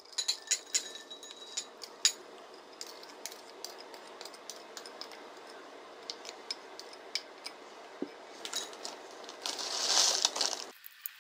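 A wooden spoon scrapes and knocks against glass mixing bowls as a corn and cheese mix is transferred, with sharp clinks of glass, most of them in the first two seconds. Near the end, shredded mozzarella rustles as it is poured into the bowl.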